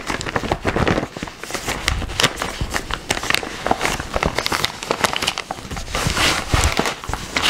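Clear plastic sleeve of a cross-stitch kit crinkling and crackling as hands handle and shift it, a dense run of short crackles.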